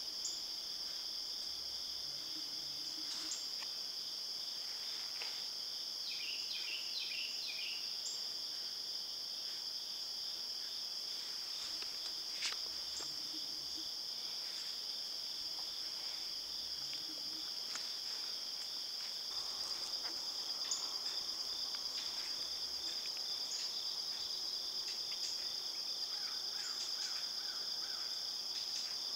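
A steady chorus of insects in the woods, an unbroken high-pitched shrill in two bands. A few short chirps come about six seconds in, and a single small click near the middle.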